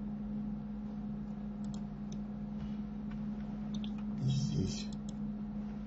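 A few faint, scattered clicks of a computer mouse and keyboard over a steady low electrical hum, with a brief murmur about four seconds in.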